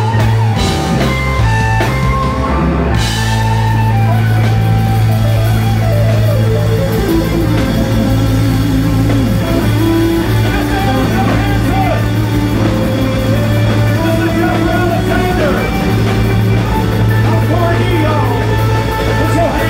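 Electric blues-rock band playing live: bent-note electric guitar lead lines over a steady electric bass line and drum kit. The first three seconds are short, clipped band hits, then the whole band plays on steadily.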